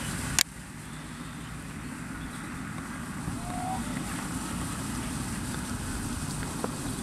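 Wind noise on the microphone: a steady low rumble. A single sharp click comes about half a second in, and a brief faint gliding tone about halfway through.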